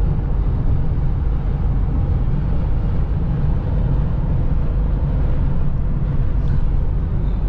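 Steady road and engine noise inside the cabin of a Ford Explorer cruising at highway speed, mostly low-pitched and unchanging.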